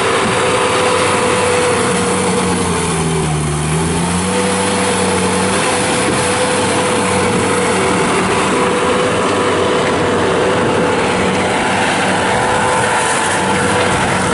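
Bobcat T180 skid steer's Kubota diesel engine running at a steady high speed; about three seconds in its pitch sags briefly and comes back up.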